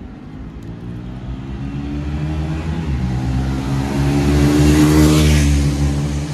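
A motor vehicle approaching and passing close by. Its engine and tyre noise swell to a peak about five seconds in, then fade.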